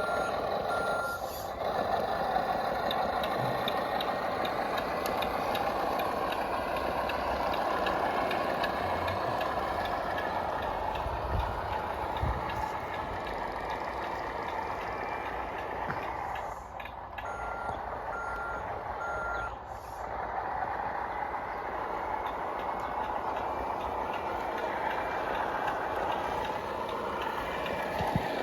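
Radio-controlled model truck's reversing beeper sounding a repeated beep, in the first second and again about two-thirds of the way through, over the steady whine of the truck's drive.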